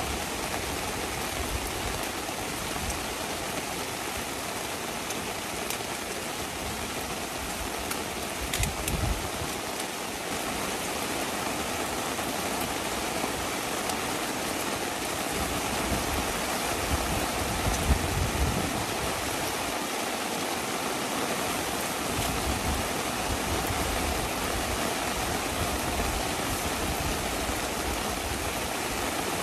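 Heavy rain falling in a steady hiss, with scattered drop ticks and a couple of brief louder low bumps about nine and eighteen seconds in.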